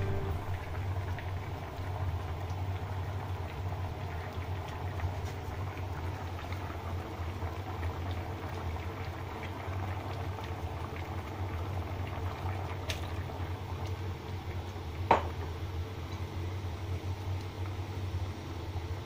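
Water at a rolling boil in a shallow pan of sliced lotus root, a steady bubbling. A single sharp clink about fifteen seconds in.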